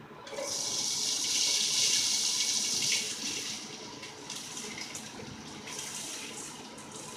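Boiled basmati rice sizzling as it goes into melted butter in a hot pan. The sizzle starts about a third of a second in, is loudest for the first few seconds, then settles to a quieter sizzle.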